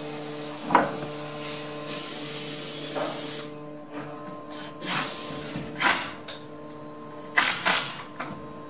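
Cordless screw gun whirring steadily as it drives screws through a door hinge into a wooden jamb, stopping about three and a half seconds in. A few sharp knocks and clicks of handling follow.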